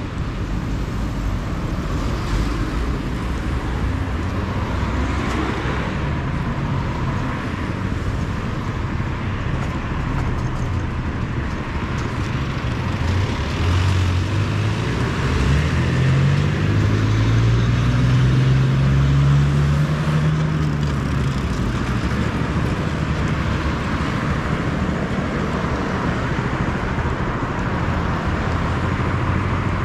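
Steady road traffic: cars passing on a multi-lane avenue, tyre and engine noise. About halfway through, one louder engine passes close by, its pitch rising and then falling.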